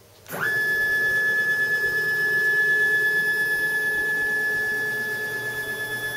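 Stepper motor driving the CNC mill's table along its ball screw: a steady high whine that glides quickly up in pitch as the move starts, about a third of a second in, then holds level.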